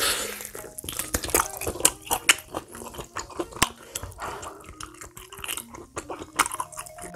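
Sticky, wet clicks and crackles of soft boiled pork trotter skin and gelatin, coming thick and irregular.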